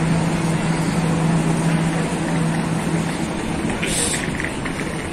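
Passenger express train pulling out of the station: a steady rumble of the coaches rolling past, with a low hum that fades about three seconds in. Around four seconds in comes a short burst of hiss and clicking.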